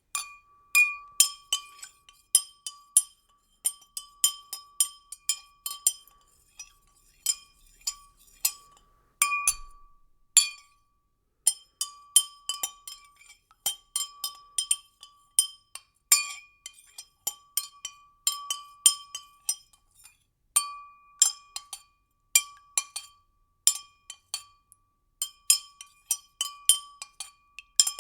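A spoon stirring liquid in a glass, clinking against the side again and again in quick runs with short pauses; each clink rings with a clear glassy tone.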